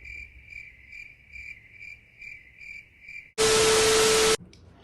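A high electronic beep pulsing steadily about twice a second. About three seconds in it gives way to a second of loud static hiss with a steady low tone, which cuts off abruptly.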